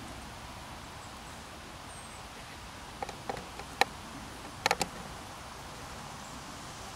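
Faint, steady outdoor background noise, broken by a few sharp clicks about three to five seconds in, the loudest near the middle.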